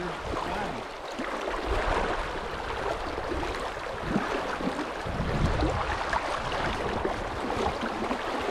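River water rushing over a rocky riffle around a wading angler, a steady hiss of current, with a brief low rumble about five seconds in.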